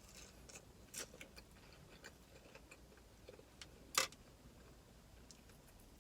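Quiet mouth sounds of someone eating sticky BBQ-sauced rib bites: soft wet chewing and lip-smacking clicks, with one sharper, louder click about four seconds in.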